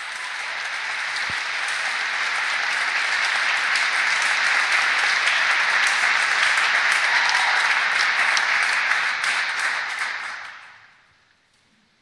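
Concert audience applauding, swelling over the first few seconds, holding steady, then dying away about ten seconds in.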